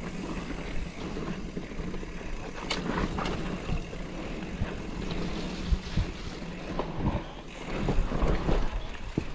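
Mountain bike ridden fast down a dirt singletrack: tyres rolling over dirt and roots with a steady low rumble, and scattered sharp knocks and rattles from the bike over bumps.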